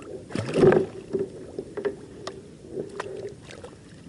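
Water splashing beside a kayak about half a second in as a catfish held in a fish grip is worked at the surface, followed by scattered clicks and knocks of gear on the kayak.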